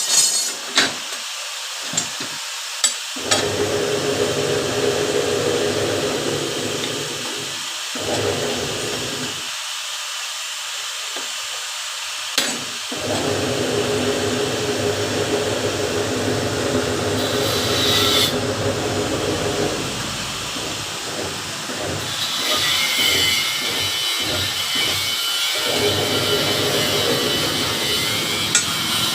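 Workshop machine cutting or drilling metal, running in long stretches with short breaks. A few sharp clicks come in the first seconds.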